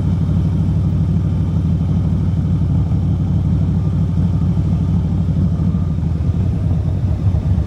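Motorcycle on the move: a steady low engine and road rumble mixed with wind noise on the microphone.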